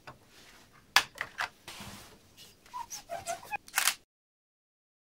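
Sharp clicks and light metal knocks from a metal front bezel being lifted off an old test set's CRT and a camera being handled, in two short clusters. The loudest clicks come just before the sound cuts to dead silence about four seconds in.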